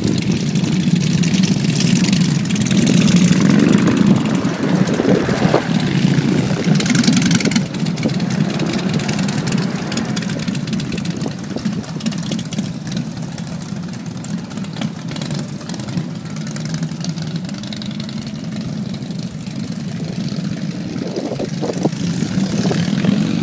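A group of cruiser motorcycle engines running together with a steady low rumble, loudest in the first several seconds and then dropping back as the bikes pull away.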